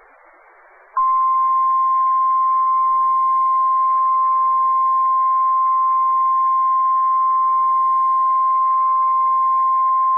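NOAA Weather Radio 1050 Hz warning alarm tone: one loud, steady single-pitch tone that starts abruptly about a second in, after faint radio hiss. It is the alert tone that comes before a warning message and switches on weather radio receivers.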